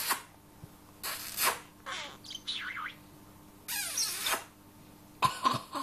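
Budgerigar chattering close up in about five short bursts of scratchy, warbling sounds with quick pitch wiggles and slides, separated by brief pauses.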